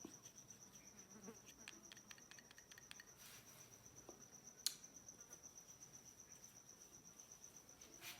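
Near silence with a faint, steady, high-pitched pulsing trill throughout, and a few soft clicks and taps, the sharpest about four and a half seconds in.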